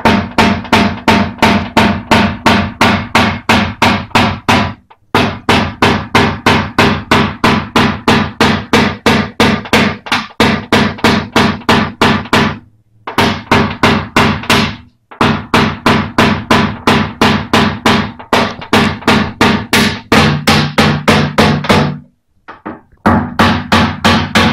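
Hammer tapping a white knockdown punch held against a car's steel front fender: quick, even taps, about four a second, in runs with short pauses. This is paintless dent repair knockdown work on the fender's crease.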